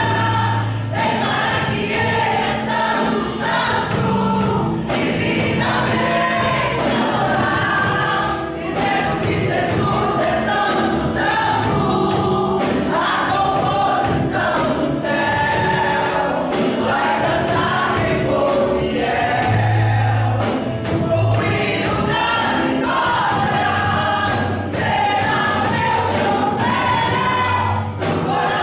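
A woman sings a Portuguese gospel song live into a hand microphone, amplified over instrumental accompaniment, with other voices singing along.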